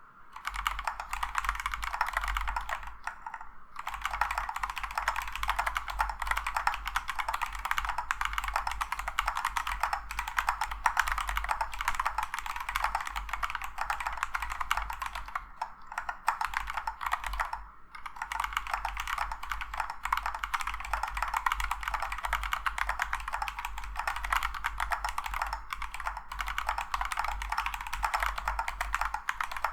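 Kinesis Advantage360 Pro split ergonomic keyboard with Gateron KS-9 Pro 2.0 Silver linear switches and sound-dampening foam, typed on continuously as a sound test: a fast, even run of keystroke clicks, with two short pauses, one about three and a half seconds in and one near eighteen seconds.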